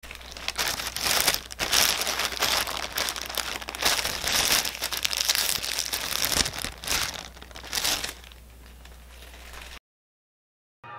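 Shopping bag crinkling and rustling in irregular bursts as hands open it and dig inside, over a low steady hum. The rustling stops about eight seconds in, and the sound cuts out abruptly shortly before the end.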